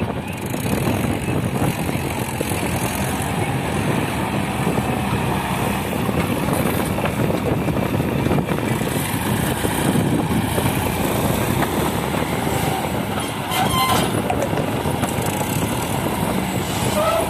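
Diesel engines of a Massey Ferguson tractor working a front loader and an Eicher tractor, running steadily while sand is loaded into the trolley. A single sharp knock comes about three-quarters of the way through.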